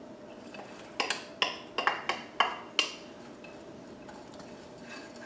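Wooden spoon knocking against a bowl as chopped onion is tapped out into a slow cooker: a quick run of about seven sharp taps over two seconds, each with a short ring.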